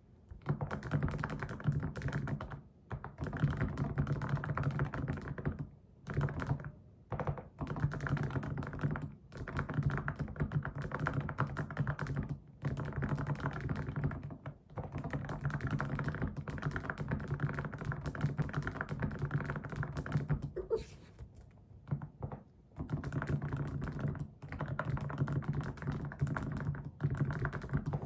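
Fast typing on a computer keyboard: dense runs of keystrokes lasting several seconds each, broken by brief pauses.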